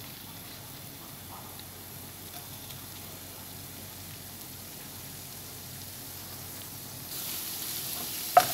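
Shredded ginger sizzling softly and steadily in hot oil in a non-stick wok. The sizzle grows louder about seven seconds in, when a wooden spoon starts stirring, and there is a sharp knock against the pan near the end.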